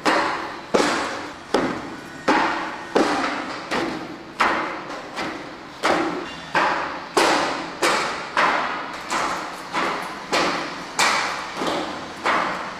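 Forearms and hands striking a wooden training dummy (mook yan jong) in a steady run of sharp knocks, about three every two seconds, each one ringing briefly.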